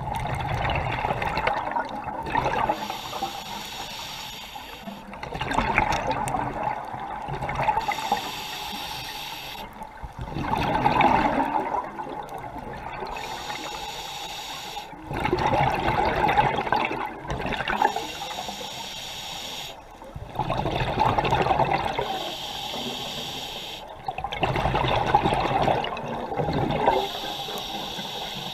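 Scuba diver's regulator breathing, heard underwater: exhaled bubbles rush out in loud bursts about every five seconds, alternating with the hiss of each inhalation.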